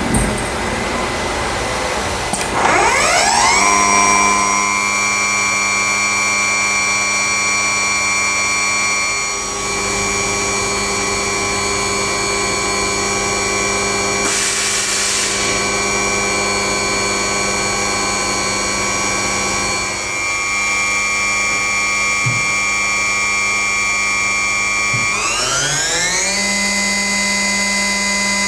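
Multicam 3000 Series CNC router running with a steady motor whine. The whine rises in pitch about three seconds in, holds, and steps up again near the end. A short hiss comes about halfway through.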